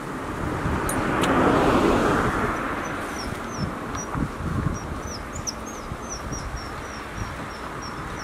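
A car passes on the road close by, its tyre and engine noise swelling to a peak about two seconds in and then fading. A small bird sings a quick series of short, high chirps from about three seconds in.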